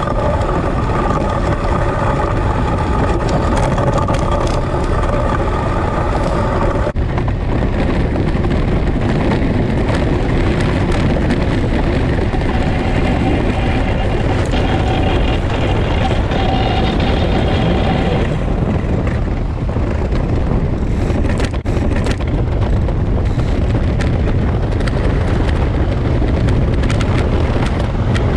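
Ice boat running fast over lake ice: a steady rush of wind and runners scraping on the ice. A pitched hum fades out about a quarter of the way through and returns for a few seconds midway, and a few sharp clicks come past the middle.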